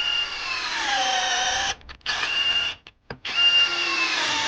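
SATA 51011 18V brushless cordless drill in low gear, boring into wooden door board. The motor whine drops in pitch as the bit loads up and cuts out about 1.7 s in. It runs again briefly, stops, then restarts and bogs down again near the end.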